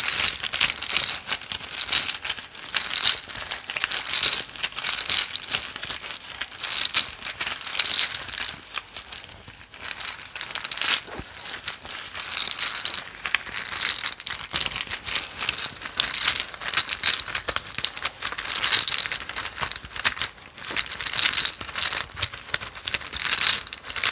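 Word pieces of a word-oracle deck being shaken and stirred inside a cloth drawstring bag: a steady crinkling rustle with many light clicks.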